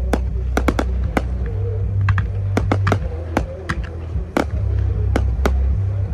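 Fireworks display set to music: an irregular run of sharp bangs from bursting aerial shells, several a second at times, over music with a heavy bass line.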